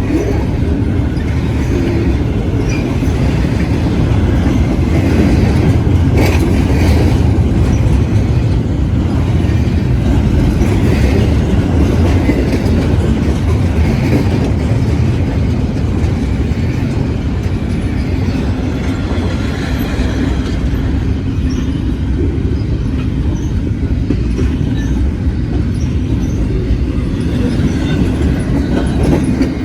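Freight train cars rolling past close by, a steady loud rumble of wheels on the rails.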